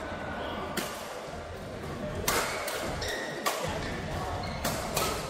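Badminton rally in a large indoor hall: rackets hitting a shuttlecock, about five sharp smacks spaced roughly a second apart, over a steady background of hall noise.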